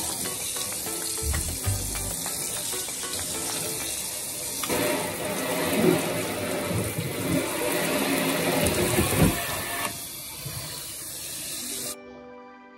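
Kitchen faucet sprayer running water onto a baking sheet as it is rinsed and wiped by hand: a steady hiss of spraying water, louder from about five seconds in until about ten seconds. The water cuts off near the end, leaving soft background music.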